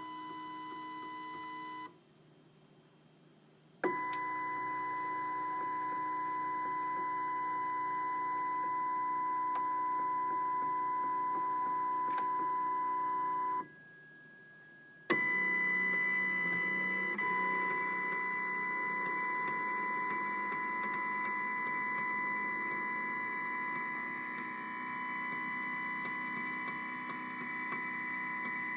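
MakerBot Replicator 2 3D printer's stepper motors whining with a steady high tone while an axis is jogged, in three runs separated by short pauses. Sharp clicks come as a run starts and once partway through: the click noise the machine makes while jogging.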